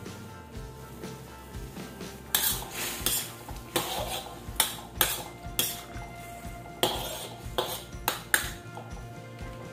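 Metal spatula stirring in a metal wok of simmering soup, knocking and scraping against the pan about a dozen times from about two seconds in until near the end.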